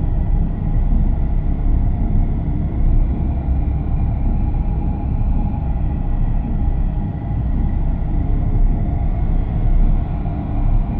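A steady low rumble with a faint hum over it, unchanging throughout.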